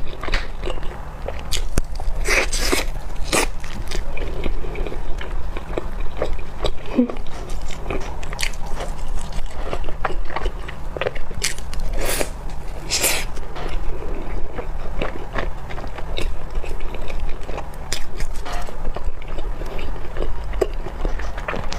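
Close-miked eating: biting into and chewing vanilla custard bread, a run of irregular sharp mouth clicks and soft crunches, a few of them louder, over a steady low hum.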